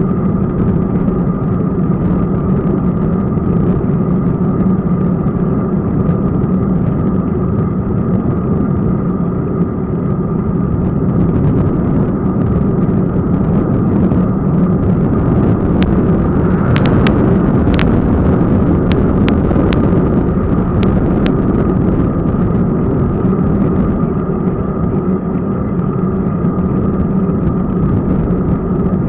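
Steady wind and road rumble picked up by an action camera on a moving bicycle on asphalt, with a handful of sharp clicks about halfway through.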